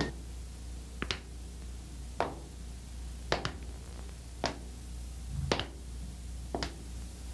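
Sharp clicks or snaps at a slow, even beat of about one a second, some of them doubled, over a steady low hum.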